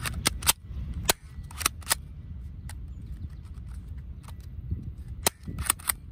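Sharp mechanical clicks from the controls of an Academy FNS-9 airsoft pistol being worked by hand: a quick run of clicks in the first two seconds, one more a little later, and four in quick succession near the end.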